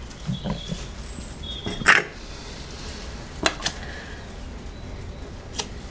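A few separate sharp clicks and knocks from brake pads being seated in a motorcycle front brake caliper and parts being handled on a workbench. The loudest knock comes about two seconds in, with lighter clicks near the middle and near the end.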